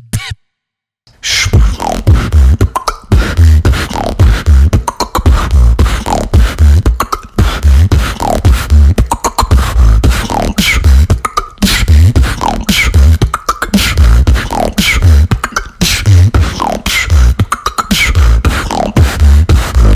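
A female beatboxer performing a solo beatbox routine: a heavy, driving bass-kick rhythm with sharp snare and hi-hat clicks and short falling pitched sweeps repeated throughout. It starts after about a second of silence.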